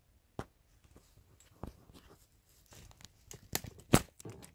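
Handling noise from the recording camera being picked up and moved: irregular knocks, clicks and rustles, with the sharpest knock about four seconds in.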